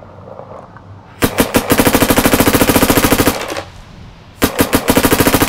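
Virtue Ace Luxe X electronic paintball marker firing in burst mode at about 15 balls per second: a rapid string of shots for about two seconds starting a second in, a short pause, then another rapid string near the end.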